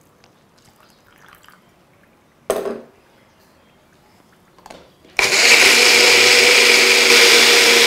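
A single clunk, then about five seconds in an electric mixer grinder starts and runs steadily at full speed, with a high whine over its motor. It is wet-grinding roasted peanut and seed powder with a little water into a paste.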